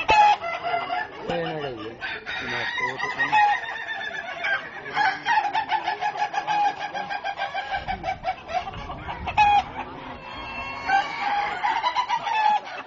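Several ayam batuk roosters crowing, their crows overlapping. Each crow is a long train of rapid, stuttering, cough-like pulses lasting a few seconds, with fresh crows starting about two seconds in, about five seconds in and near the end.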